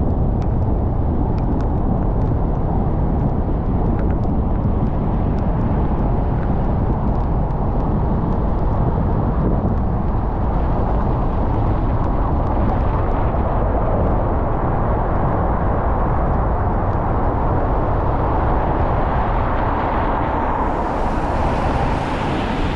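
A car driving on wet city streets: a steady rumble of road and tyre noise on rain-soaked pavement, with scattered faint ticks in the first few seconds. A louder rushing hiss builds near the end.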